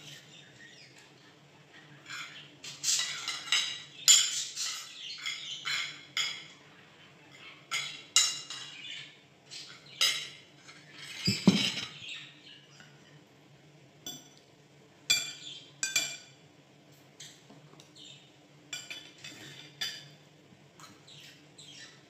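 Metal spoon and fork clinking and scraping against ceramic plates and bowls during a meal, in short irregular clatters, with one heavier knock about halfway through. A caged pet bird chirps faintly in the background.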